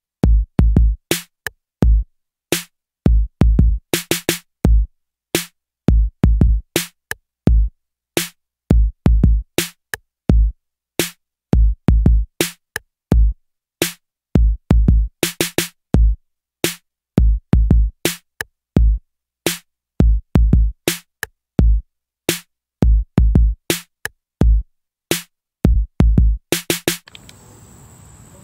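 Background music: a drum-machine beat of deep kick drums and sharp hits with silence between the strokes. It stops about a second before the end, giving way to crickets.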